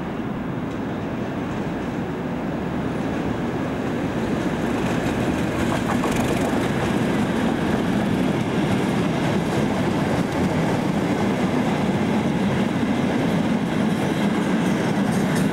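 A diesel-hauled freight train running through at speed, a long rake of heavy open wagons going past. It grows louder over the first half as the train comes alongside, then holds a steady heavy rolling noise with a few wheel clicks.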